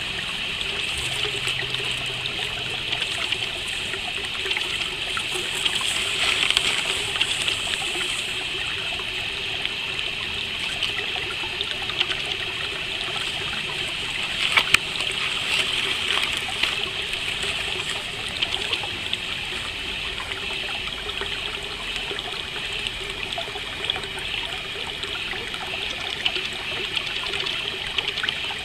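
Stream water trickling steadily, over a continuous high chirring of crickets.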